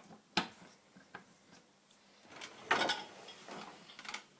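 Parts of a dishwasher being handled: a sharp click about half a second in, then a longer rattling, sliding noise around the middle.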